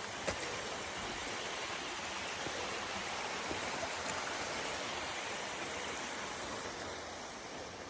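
Steady rush of flowing water, a stream or waterfall, with a few faint ticks.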